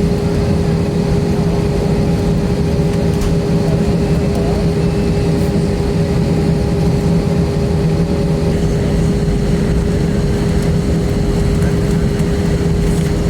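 Steady cabin drone inside an Airbus A320-232 on the ground: a constant engine hum from its IAE V2500 engines over the rush of cabin air, holding level with no change in pitch.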